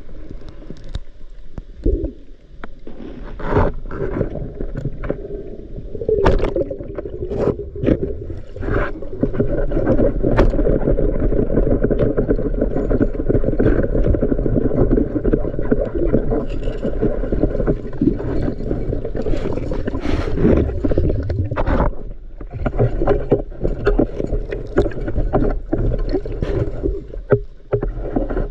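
Water churning and gurgling around a spearfisher's camera as he swims, with scattered clicks and knocks. The rushing is heaviest through the middle and eases about 22 seconds in.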